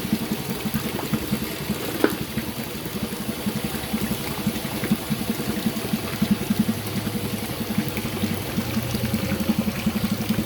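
Tofu-dough cooking machine running with liquid churning inside it, heard as a rapid, even pulsing over a steady hiss.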